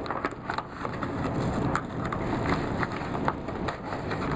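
A yellow padded paper mailer being torn open by hand, its paper and padded lining crinkling and ripping in irregular crackles.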